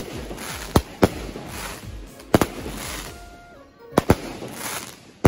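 Aerial fireworks bursting: a string of sharp bangs, several in quick pairs, over a steady hiss and crackle of burning sparks.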